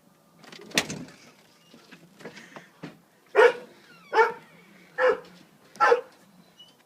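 Dog barking in response to a doorbell: a sharp bark about a second in, then four loud single barks a little under a second apart.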